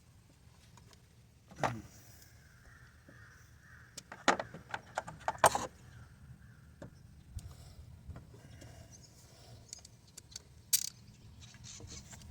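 Metal hand tools clinking and clattering against engine parts: a sharp clank about two seconds in, a quick irregular run of clinks around the middle, and one more clink near the end.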